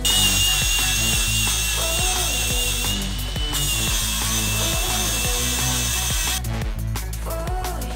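Handheld angle grinder running against the steel frame of the car: a steady high whine with a grinding hiss, stopping about six and a half seconds in. Background music plays underneath.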